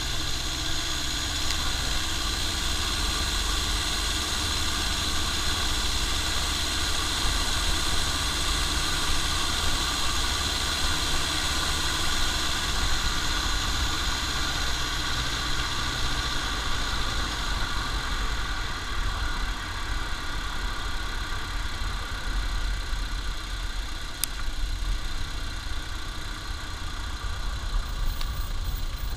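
Toyota Estima Lucida turbodiesel minivan on the move, heard from beneath the car: steady engine and drivetrain rumble with tyre and road noise and a steady high whine over it. The sound eases off a little about two-thirds of the way through.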